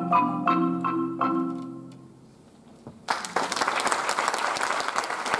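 Concert marimba playing its last few notes, the final ones ringing out and fading away over about a second. About three seconds in, audience applause breaks out and continues.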